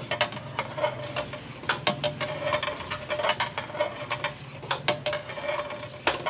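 Long metal ladle scraping and knocking against a large steel pot as onions frying in ghee are stirred, with irregular clicks and scrapes over a steady hum.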